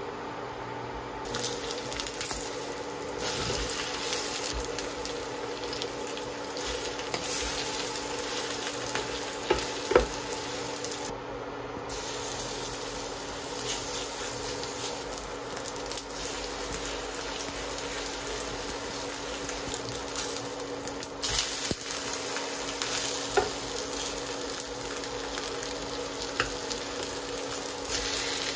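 Shredded cabbage and ham batter sizzling as it fries in oil in a hot frying pan, the sizzle starting about a second in after a quiet moment. A spoon scrapes and taps the pan now and then, with one sharp knock about a third of the way through.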